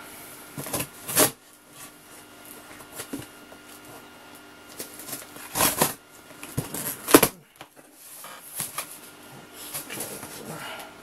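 Cardboard shipping box and its packing being handled and opened: irregular rustling, scraping and crackling with a few louder sharp bursts, the loudest a little after a second in and twice in the middle.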